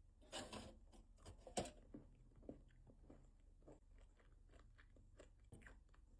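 Faint close-up chewing of a milk-chocolate Easter egg with biscuit pieces inside: soft irregular crunches and mouth clicks, with a louder crunch about half a second in and a sharp one about a second and a half in.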